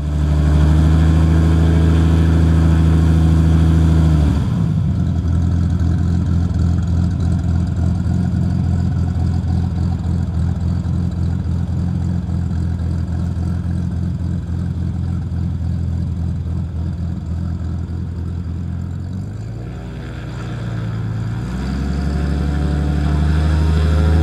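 Extra 330L aerobatic plane's Lycoming AEIO-580 piston engine and propeller running during takeoff. The note changes sharply about four seconds in, then runs steadily and fades a little. It dips around twenty seconds and grows louder again near the end.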